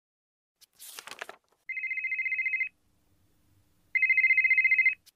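Telephone ringing: two rings of a fast warbling trill, each about a second long, the second louder, after a short hiss about a second in.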